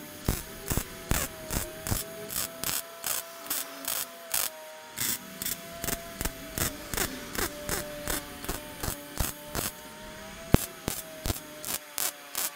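MIG welder stitch-welding a stainless steel turbo downpipe in short, even pulses, about three a second, with two brief pauses, over a steady hum.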